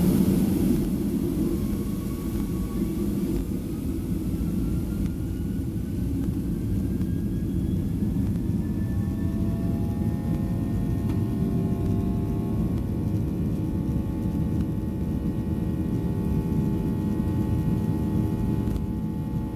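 Boeing 737-800's CFM56 jet engines heard from inside the cabin: a steady rumble with a whine that rises in pitch over the first ten seconds or so as the engines spool up, then holds as several steady tones.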